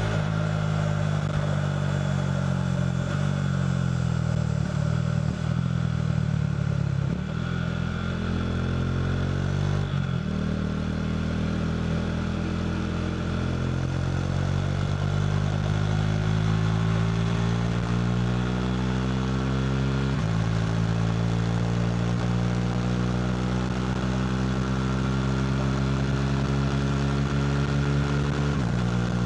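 KTM RC390's single-cylinder engine running through a Two Brothers slip-on exhaust while riding. Its pitch falls as it eases off in the first few seconds, then climbs steadily through the gears, with upshift drops about ten seconds in, twenty seconds in and just before the end.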